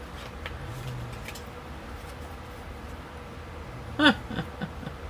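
Quiet room tone with a faint steady hum; about four seconds in, a woman gives one short wordless vocal sound that falls in pitch.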